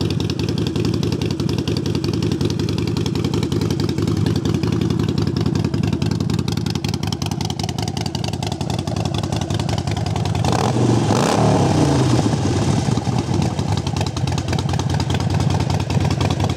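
A 2011 Harley-Davidson Sportster Forty-Eight's 1200cc air-cooled V-twin running through aftermarket Vance & Hines exhaust pipes. It idles steadily, is revved up and back down about ten seconds in, then carries on running a little louder.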